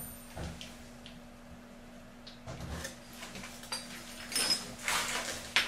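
Hands working stainless water-pipe fittings and tools: scattered light clicks, scrapes and rustling of metal parts and cloth, with a few sharper knocks in the last couple of seconds, over a faint steady hum.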